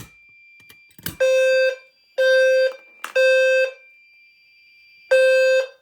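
Fire alarm system in alarm, its low-frequency sounder sounding a temporal-three pattern: three half-second blasts about a second apart, a pause, then the next round starting near the end. A steady high whine runs underneath, and sharp clicks come near the start and about a second in.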